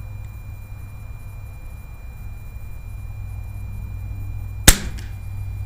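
A single sharp shot from an FX Impact PCP air rifle firing a 25.4-grain JSB Jumbo Monster Redesigned pellet, with brief ringing after it, loud with the microphone near the muzzle. A steady low rumble runs underneath.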